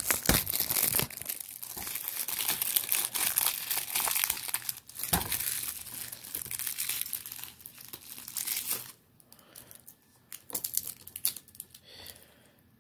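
Plastic shrink-wrap crinkling and tearing as it is peeled off a new DVD case. The crackling dies down about nine seconds in, leaving a few faint handling clicks.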